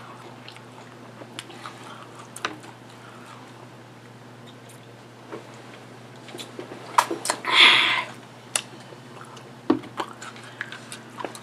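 Close-miked chewing and mouth sounds, with scattered sharp clicks, over a steady low hum. About seven and a half seconds in, right after a swig from a bottle, comes one loud breathy burst lasting about half a second.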